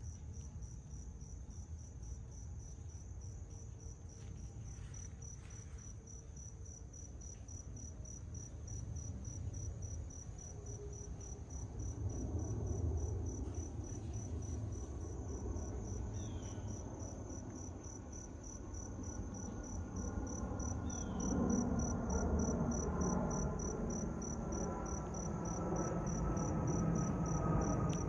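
Crickets chirping in a steady, regular pulse, while the rumble of a Boeing 747-8's four jet engines grows louder from about halfway through as it approaches overhead, with a faint whine slowly falling in pitch near the end.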